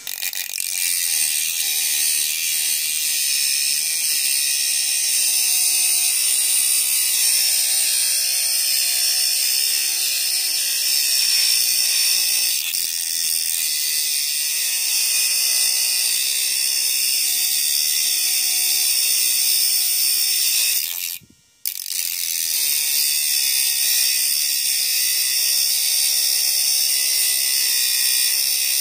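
Homemade mini grinder, a small 9-volt battery-powered DC motor with a tiny cutting disc, running steadily at speed as the disc grinds into steel nails with a hissing cut. The sound cuts out briefly about two-thirds of the way through, then resumes.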